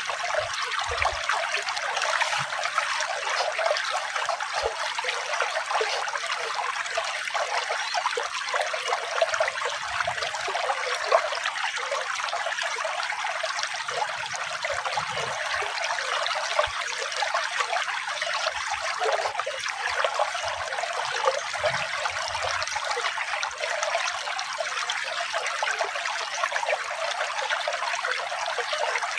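Water trickling and splashing steadily, an even, bright rush with almost no deep rumble.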